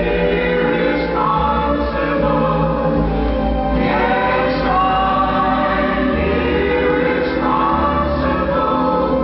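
Orchestral pop recording with a choir singing sustained lines over a bass line that changes note about once a second; several vocal notes slide upward.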